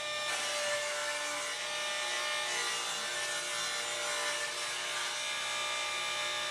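Table saw running with a steady whine, ripping a narrow strip of wood off a board against the rip fence.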